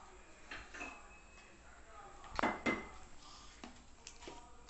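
Several sharp knocks and clatters of hard objects, the loudest pair a little over two seconds in, as a baby in a plastic walker bangs at a plastic vegetable rack.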